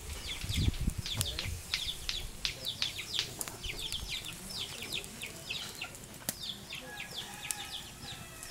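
Birds chirping: a steady stream of short, high, falling chirps, several a second. A low thump comes in the first second, and a few sharp clicks come later.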